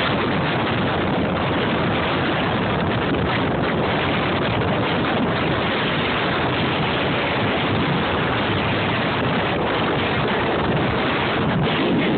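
Steady wind rushing over a phone microphone, with no separate splashes or knocks standing out.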